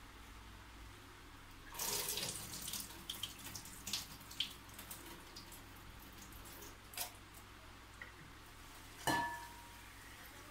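Tap water running into a rice cooker's inner pot for a few seconds as quinoa is rinsed, loudest early on and then easing off. A sharp knock with a brief ring near the end.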